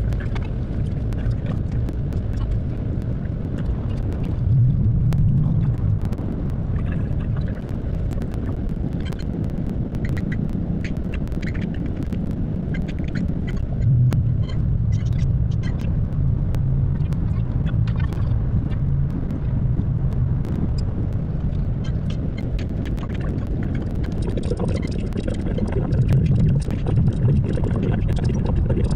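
Steady low road rumble inside a moving vehicle's cabin, with scattered light ticks throughout.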